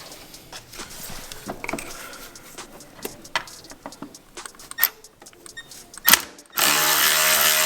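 Scattered clicks and knocks of hand work on car parts. Then, about six and a half seconds in, a handheld power drill/driver starts spinning steadily, backing out a bolt on the car's intercooler mount.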